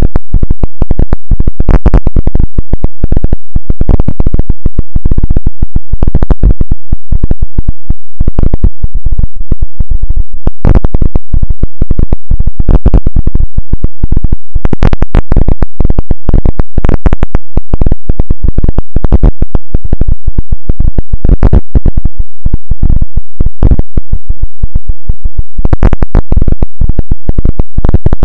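Loud, heavily distorted electronic noise: a dense, irregular stream of crackles and pops with strong bass, never letting up.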